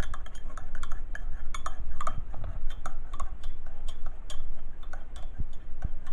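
Irregular light clicking and clinking of kitchen utensils and dishes being handled.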